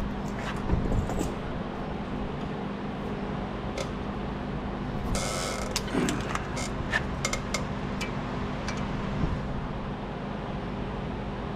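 Hand tools clinking and clicking on metal as a wrench is fitted to the heat-loosened rotor retaining bolt, with a short hiss about five seconds in, over a steady low hum.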